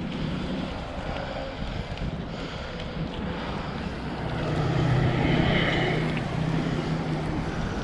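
Wind rushing over the microphone while cycling, with a louder swell a little past halfway.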